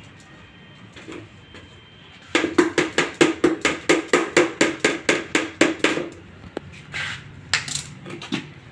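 A stick stirring liquid fast in a small plastic bucket, knocking and scraping against the pail's sides in a quick, even rhythm of about five strokes a second for nearly four seconds, starting a couple of seconds in; a few lighter knocks follow.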